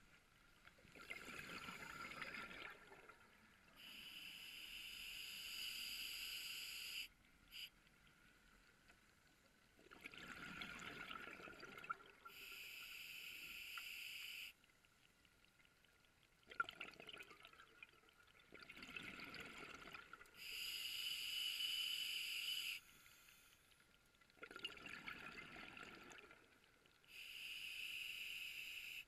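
Scuba diver breathing through a regulator: a steady hiss of air drawn through the demand valve alternating with a rush of exhaled bubbles, about four breaths, with short quiet pauses between them.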